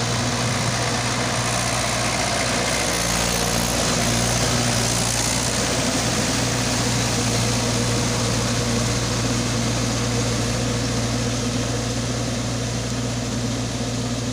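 Mahindra 575 XP Plus tractor's four-cylinder diesel engine running steadily under load while its rear rotavator churns through a flooded, muddy paddy field, a steady engine hum under a rushing wash of churned water and mud.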